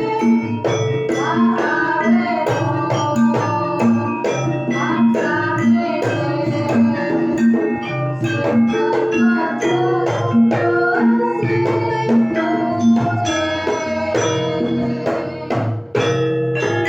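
Javanese gamelan ensemble playing a piece: sustained ringing metallophone tones over regular struck strokes and a low note repeating at an even pace, with drum strokes.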